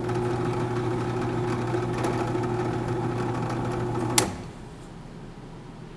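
Bench-top drill press motor running steadily at full speed. About four seconds in, its paddle switch clicks off and the motor quickly dies away.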